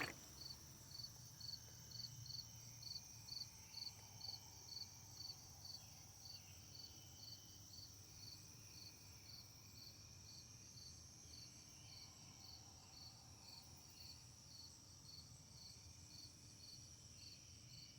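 Faint insect chirping, about two evenly spaced chirps a second, over a steady high insect trill.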